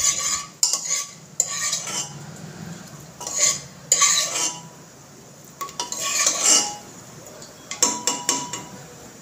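Metal spoon scraping and clinking against the inside of a pressure cooker while stirring whole spices roasting in ghee, in separate strokes with short pauses between them.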